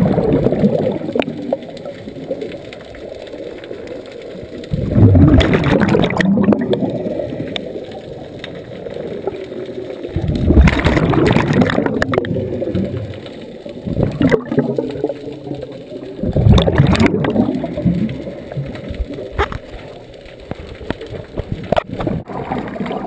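A scuba diver breathing through a regulator underwater: a loud gurgling rush of exhaled bubbles about every five to six seconds, five times in all, quieter between breaths.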